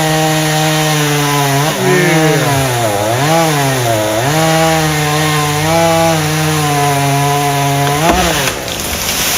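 Chainsaw running at high speed while cutting oak, its pitch sagging several times as the chain loads up in the wood and then recovering. Near the end it revs up briefly and then stops.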